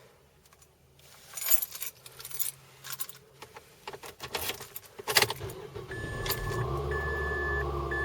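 Car keys jangling with clicks, then about five seconds in the Mazda 3's engine starts and settles into a steady idle. A warning chime beeps about once a second over the idle.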